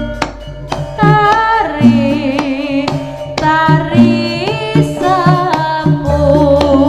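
Live East Javanese jaranan sentherewe music: a wavering sung melody over drums, stepping bass notes and pitched percussion.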